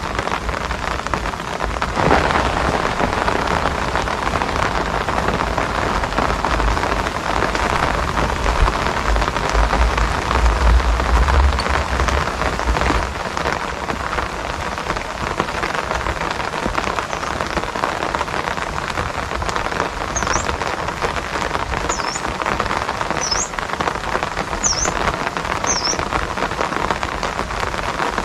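Steady rain falling and pattering, heard as a dense even hiss. A low rumble sits under it through the first half, and a few short high chirps come near the end.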